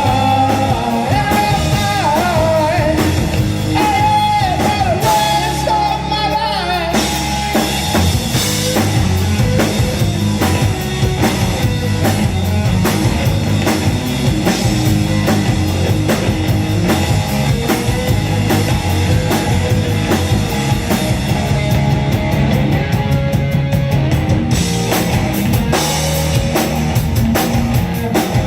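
Rock band playing an instrumental break with electric guitar, bass and drum kit. A wavering lead melody stands out over the first seven seconds or so, then the full band carries on with a steady beat.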